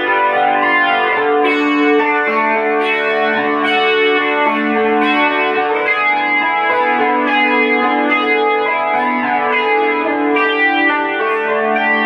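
Electric guitar, a Fender Stratocaster played through Hiwatt amplifiers, picking chords with the notes ringing into one another.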